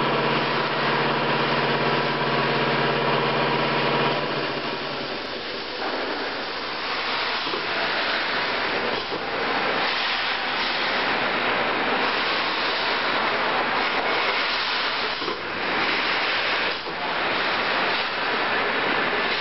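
Steady workshop machine noise: a low hum with a rushing hiss. The hum drops away about four seconds in, leaving a steady rushing noise with a few brief dips.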